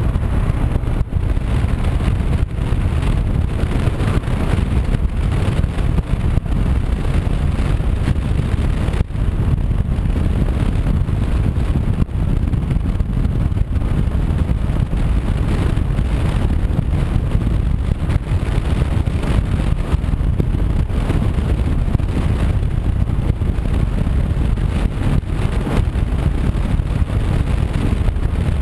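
Honda CB500X motorcycle cruising steadily at road speed: a loud, even rush of wind over the on-bike camera's microphone, mixed with engine and tyre noise.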